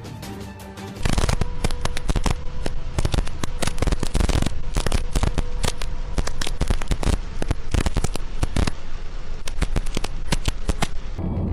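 Dense, irregular crackling pops that start abruptly about a second in and run for about ten seconds before stopping near the end.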